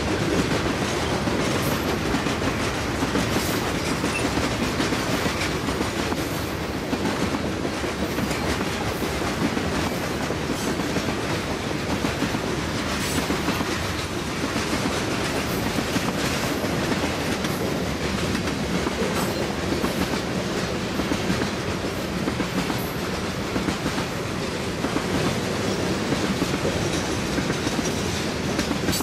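Freight train of covered hopper cars rolling steadily past, its steel wheels clicking and clattering on the rails over a continuous rumble, with frequent sharp clicks.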